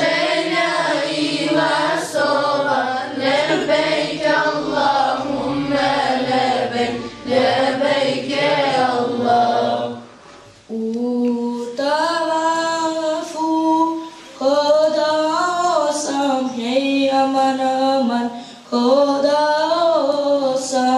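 A group of children singing an unaccompanied Islamic devotional song together, in unison. About ten seconds in there is a short break, after which the singing comes back higher and clearer.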